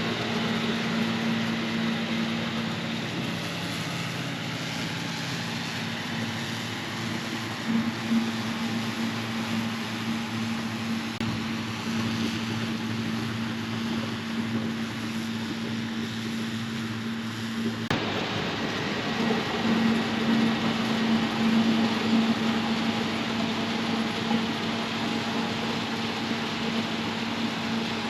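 Combine harvester running steadily while harvesting wheat, a constant engine hum under the noise of the machine; the sound changes abruptly about two-thirds of the way through.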